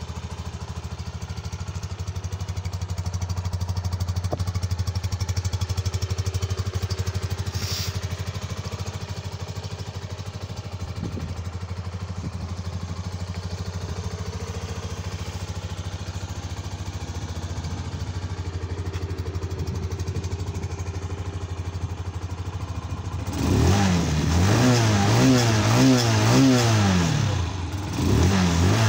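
Romet ZXT 125 FI motorcycle's fuel-injected single-cylinder engine idling steadily. Near the end it is revved over and over, the pitch rising and falling in quick blips, with a short break just before it resumes.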